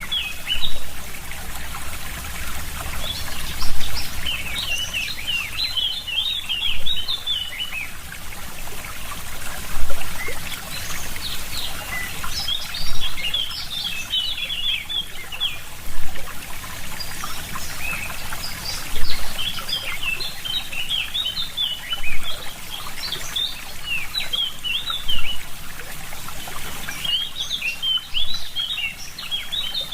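Small birds chirping in quick twittering bouts of a few seconds each, four times, over a steady background hiss with brief low rumbles on the microphone.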